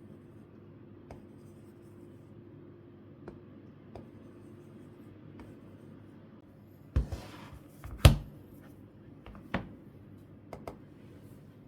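Hands handling a stylus pen and its packaging: a few faint clicks, then a knock with a short rustle about seven seconds in, a sharp loud click a second later, and a few more knocks and clicks near the end.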